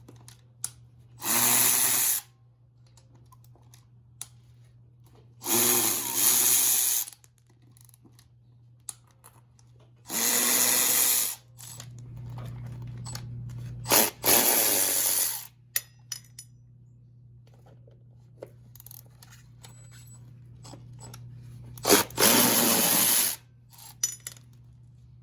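A handheld power tool, such as a drill, run in five short bursts of about a second each, with a steady low hum underneath.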